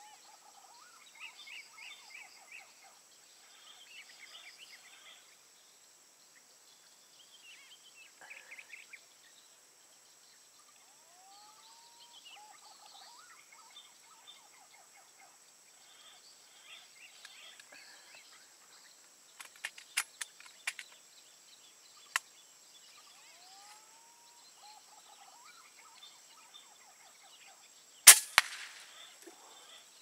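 Birds calling with several rising whistles and a few sharp clicks, then near the end one loud sharp crack. The crack is a Hummer X7 air rifle firing a 16-grain slug at a perched green pigeon.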